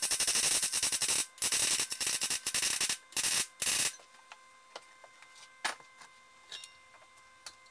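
Wire-feed welder's arc crackling on steel in three welding runs: the first two about a second and a half each, the last under a second, stopping about four seconds in. After that only a few faint clicks.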